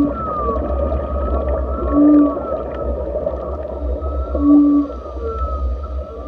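Whale calls in an underwater soundscape: three short, low hoots about two seconds apart, with higher arching calls above them over a steady low rumble.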